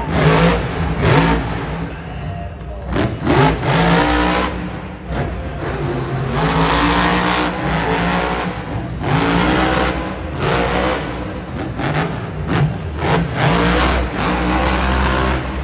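Grave Digger monster truck's supercharged V8 engine revving hard, its pitch sweeping up and falling back again and again as the truck spins and drives across the dirt.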